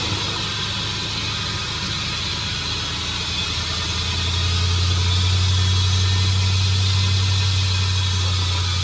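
Chevrolet 4x4 running with a steady low drone that swells louder about four seconds in and eases off near the end. The drone is the rear-end noise that the owner suspects comes from a bad 10-bolt differential.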